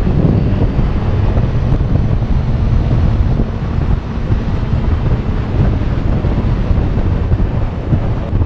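Steady wind buffeting on the camera microphone from riding a motorcycle at road speed, with the bike's engine running underneath.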